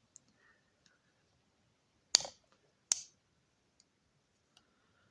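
Victorinox Farmer Alox Swiss Army knife's slipjoint tools snapping closed and open: two sharp clicks about three-quarters of a second apart, with a few faint ticks of handling.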